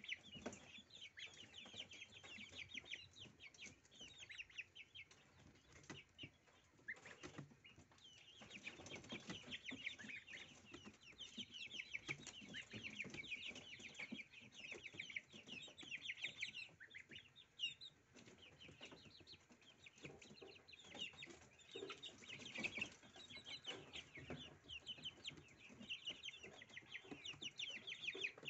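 Domestic goslings peeping in quick runs of short, high chirps as they peck at a bunch of dill, with a few soft clicks mixed in.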